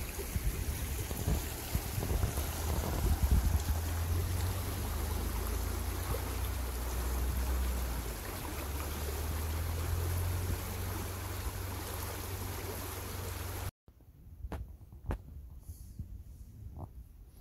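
Steady rush of falling water with low wind rumble on the microphone, cutting off abruptly near the end into quieter surroundings with a few sharp clicks.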